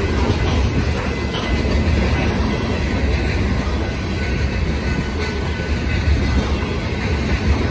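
Loaded BNSF coal train's hopper cars rolling past close by: a loud, steady rumble of steel wheels on the rails.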